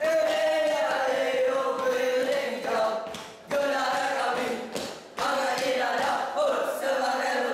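A group of boys chanting together in unison as a war-dance chant, in loud sustained phrases with brief breaks about three and five seconds in.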